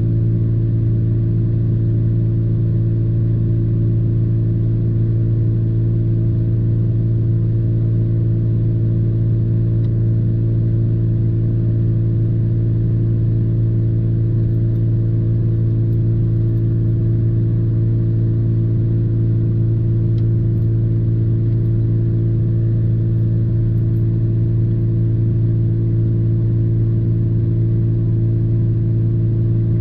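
Steady low hum of a parked pickup truck's engine idling, heard inside the cab, unchanging throughout.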